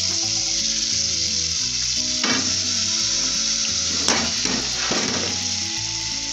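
Hot oil tempering (tadka) poured onto cooked rice and dal in an aluminium pressure cooker, sizzling steadily, with a few sharp scrapes of a metal spoon against the pot.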